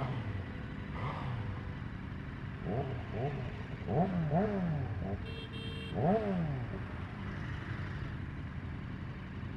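Motorcycle engines idling in slow traffic, with a run of quick throttle blips from about three seconds in, the loudest near the middle. A short high beep sounds about halfway through.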